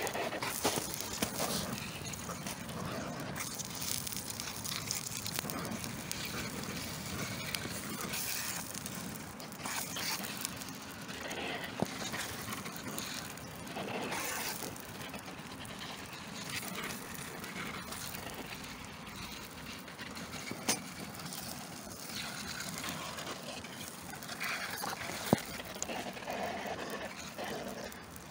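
Burning cardboard crackling, with a sharp pop now and then over a steady background hiss.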